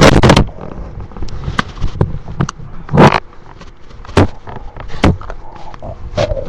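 A hungry person's stomach growling, recorded close up. A dense rumbling gurgle ends about half a second in, then come scattered short gurgles and pops, the loudest about three seconds in, and a brief higher-pitched gurgle near the end.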